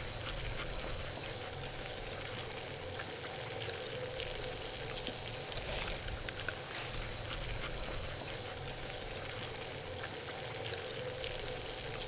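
Butter and Cajun seasoning sizzling steadily in a pan on a portable camp stove, with scattered light crackles. Now and then a fork clicks and scrapes on an enamel plate.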